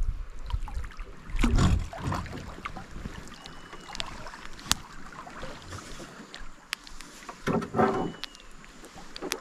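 Small boat sitting on a river with water lapping at its hull and wind on the microphone. Two louder rushing, splashing swells come through, one about a second and a half in and another about eight seconds in.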